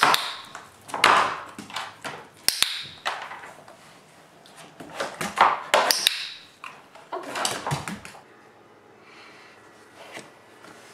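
A border collie's paws and nails tapping and clattering on a plastic tub lid and a hardwood floor, in scattered bursts of knocks and clicks.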